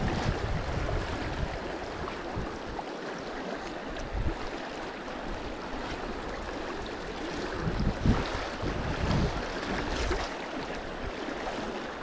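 Fast, shallow river water rushing over stones, a steady wash, with wind buffeting the microphone in uneven low gusts.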